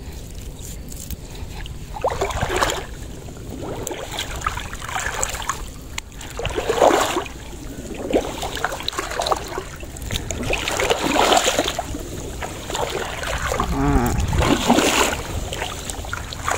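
Shallow water splashing and sloshing around a person's legs as they wade through it, in irregular surges every second or two.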